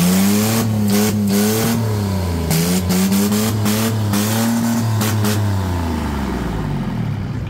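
Diesel engine running and being revved. Its pitch climbs just as the sound begins, swings down and up again over the next few seconds, and falls away near the end.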